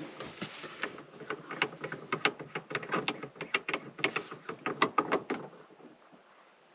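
Rapid, irregular small clicks and taps from hand work on a shift knob and its stem, about three or four a second, stopping a little after five seconds in.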